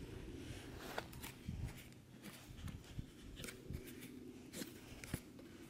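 Faint, irregular clicks and ticks from handling a fishing rod and its reel.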